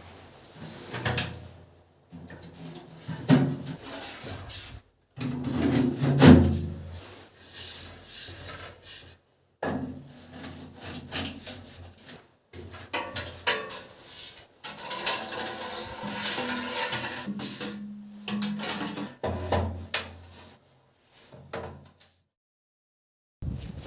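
Wood being worked and handled: irregular scraping, rubbing and knocking, broken several times by abrupt short silences.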